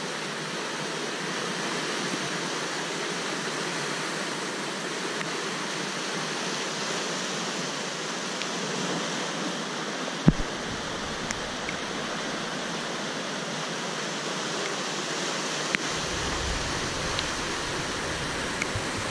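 Flash flood in a desert riverbed: fast, muddy floodwater rushing with a steady, unbroken noise. A single thump comes about ten seconds in.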